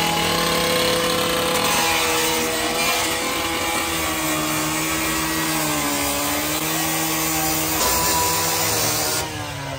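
Handheld cut-off saw with an abrasive disc screaming as it cuts into the sheet-metal door of a minivan. Its motor runs at a high steady pitch that sags around the middle as the disc bites into the metal, then recovers, and the saw stops near the end.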